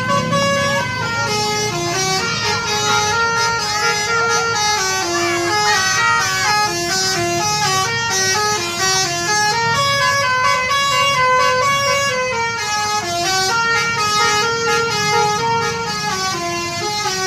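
A bus's telolet horn, a multi-tone Basuri-type musical horn, playing a long tune of short stepped notes that rise and fall, over a steady low rumble.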